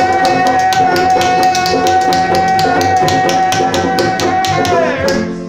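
Small acoustic band playing live: a strummed nylon-string guitar and a banjo over a quick, even tapping beat, with one long high note held above them. Near the end the held note slides down and the song stops.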